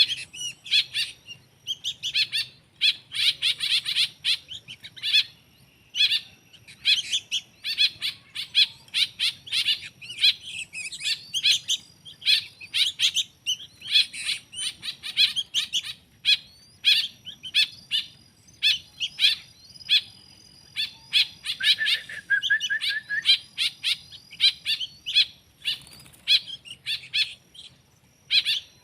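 Small songbirds chirping in quick, repeated bursts of high chirps with short pauses between them, with a brief lower trill about three-quarters of the way through.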